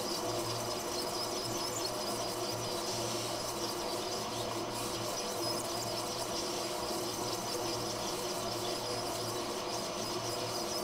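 Hot air rework station blowing a steady stream of hot air onto a small chip on an iPhone logic board, reflowing the solder to set the chip down. It is a continuous airy hiss with a steady hum under it.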